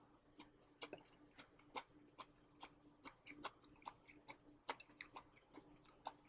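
Faint chewing picked up by a clip-on microphone on the shirt: irregular soft mouth clicks and smacks of a person eating dry-fried green beans.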